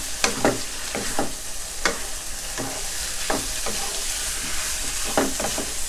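Pork belly, chillies and onion sizzling in oil in a wok while a wooden spatula stirs and tosses them, with irregular scraping clacks of the spatula against the pan over a steady hiss.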